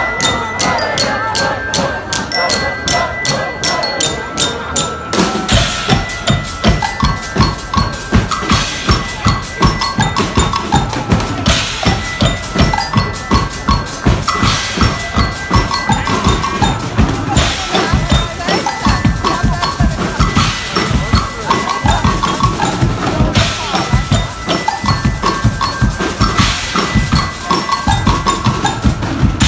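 Live band music driven by drums: light, evenly spaced taps for about five seconds, then bass drum and snare come in with a steady beat and some held tones over it.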